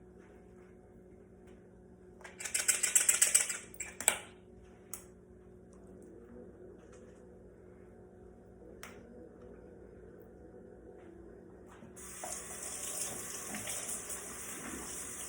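Kitchen tap running: a short loud, rattling gush about two seconds in, a sharp click soon after, then the water running steadily from about twelve seconds in.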